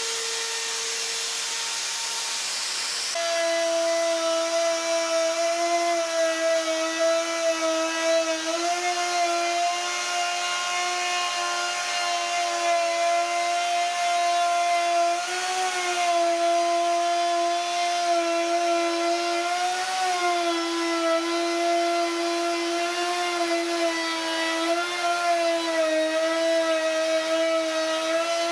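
Makita plunge router starting up about three seconds in, then running with a steady high whine while its bit cuts a curved groove in an elm board; the pitch dips briefly several times as the cut loads the motor. A homemade dust-extraction fan hisses underneath.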